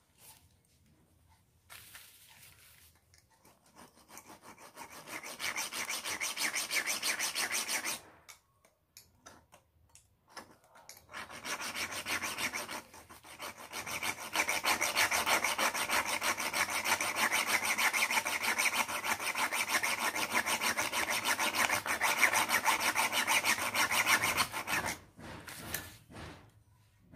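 Hacksaw blade sawing back and forth across the glass of an incandescent light bulb in rapid, rasping strokes. There is a shorter bout, a pause of a few seconds, and then a longer bout from about eleven seconds in.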